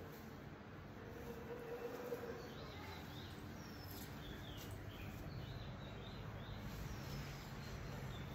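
Quiet room tone with a low hum, and scattered faint high chirps of small birds in the background.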